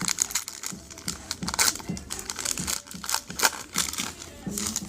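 Trading cards and their packaging being handled: a quick, irregular run of crinkling and rustling as cards are slid and flipped through.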